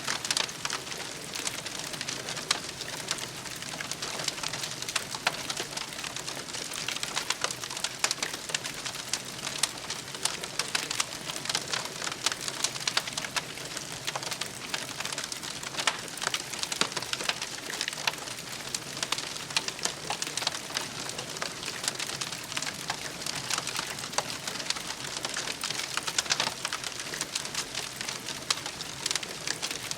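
Campfire crackling steadily, with many small sharp pops and snaps over a constant hiss of burning wood.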